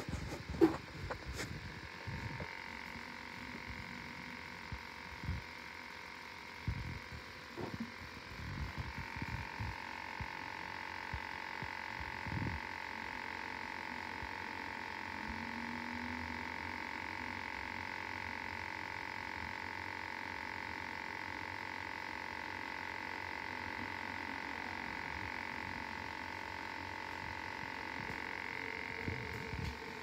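Electronic refrigerant leak detector switched on and sniffing, giving a steady high-pitched tone that holds at one pitch. Handling knocks and clicks fall through the first dozen seconds as its probe is moved over the freezer's evaporator coil.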